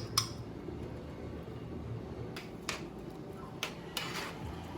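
A few light, sharp clicks and knocks of a cooking utensil against a pot, over a steady low background hum.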